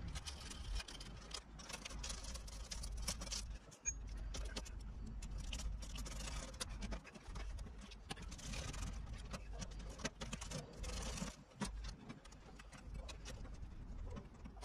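Faint metallic clicking and scraping as a nut driver and hands work the bolts on a mini-split condenser's steel wall bracket, over a low steady rumble.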